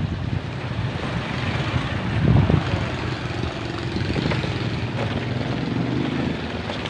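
Wind rushing over a phone microphone while riding a bicycle, with the steady drone of a motorcycle engine on the road from about three seconds in.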